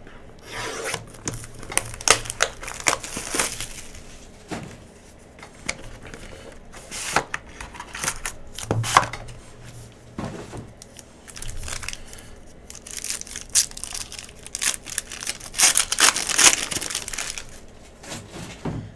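Wrapping on a trading-card hobby box and its pack being torn open and crinkled by hand: irregular rustles, tears and small clicks, with louder bursts of crinkling about a second in and again around fifteen seconds in.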